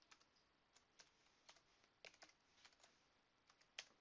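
Faint keystrokes on a computer keyboard as a password is typed: a run of about fifteen light, irregular clicks, the loudest near the end.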